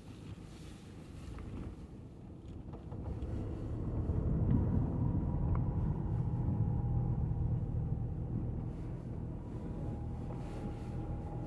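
Car engine and tyres on a muddy dirt track, heard from inside the cabin: a low rumble that grows louder about four seconds in as the car gets moving, then runs steadily.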